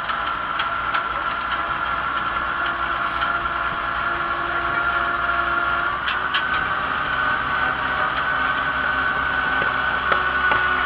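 Antique farm tractor engine running steadily while the tractor drives along a road, heard from on board; its pitch steps up slightly about halfway through.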